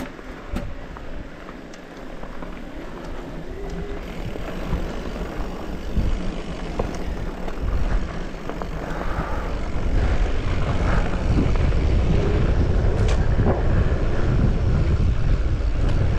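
Rushing wind noise and rumble of a mountain bike ride on a dirt trail. It grows steadily louder over the first ten seconds or so as the bike gathers speed, then stays loud, with a few scattered clicks and knocks.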